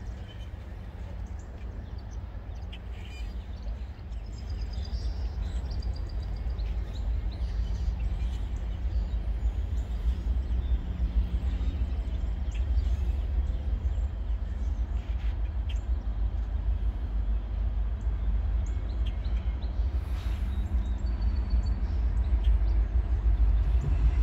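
Norfolk Southern 1014's diesel locomotive approaching at the head of a freight train, a low rumble growing steadily louder, with birds chirping.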